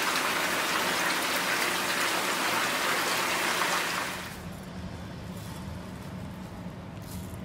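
Pork for bossam boiling hard in a big pot of broth: a dense, steady bubbling hiss. About four seconds in it stops, leaving a quieter low hum.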